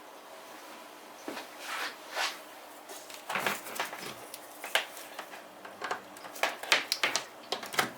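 Irregular clicks, knocks and light scrapes of hard plastic and metal parts of a nitro RC truck being handled and worked loose by hand. They start after about a second and grow busier toward the end.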